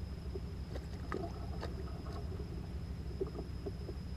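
Steady low rumble of wind and water around a fishing kayak, with a few faint, scattered clicks and taps.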